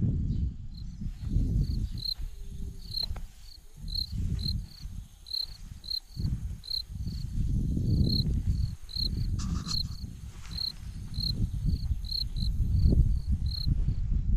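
A cricket chirping steadily, short high chirps at about two to three a second, over an uneven low rumble on the microphone from the camera being carried on foot.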